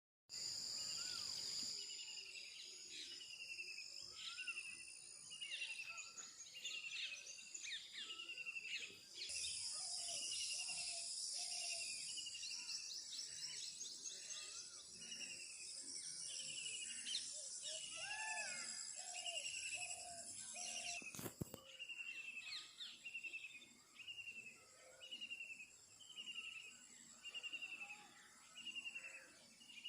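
Several wild birds singing together. One repeats a short downward-sliding note about once a second throughout, over a steady layer of high chirping, with short runs of lower whistled notes now and then. A brief sharp click about twenty-one seconds in.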